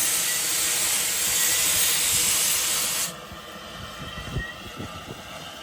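Steam locomotive venting a loud, steady hiss of steam that cuts off suddenly about three seconds in, followed by a few low thuds.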